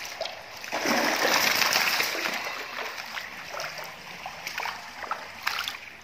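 Water splashing as a large golden rohu thrashes in shallow water: a loud splash about a second in, fading into lighter sloshing, with a few small sharp splashes near the end.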